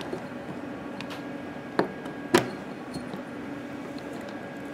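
Push-in hose coupling on a Hydrafacial skin-care machine clicking as it is pressed and worked by hand: two sharp clicks about half a second apart near the middle, the second the loudest, over a steady low hum.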